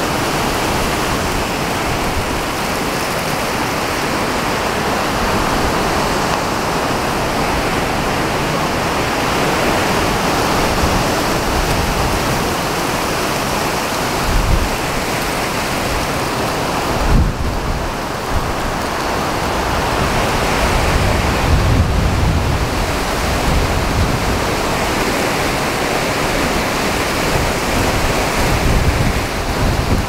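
Heavy thunderstorm rain and strong wind, a dense steady hiss with several low rumbling swells in the second half.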